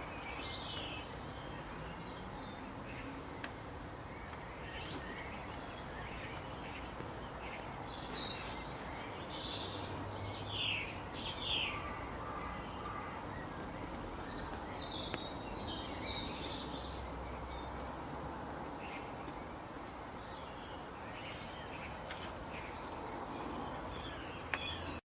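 Outdoor ambience of several birds chirping and calling over a steady background hiss, the calls short and scattered throughout.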